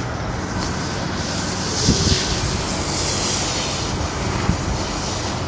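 Biocide being sprayed from a hose lance onto a felt flat roof: a steady hiss over a low rumble, the hiss swelling in the middle. A couple of soft thumps sound over it.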